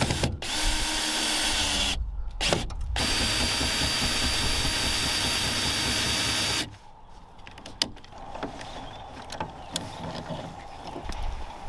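Cordless drill running at speed as it bores through a metal strip, with a steady whine; it stops briefly twice early on and cuts off about seven seconds in. After that come quieter scattered metallic clicks and taps as a spanner works a bolt.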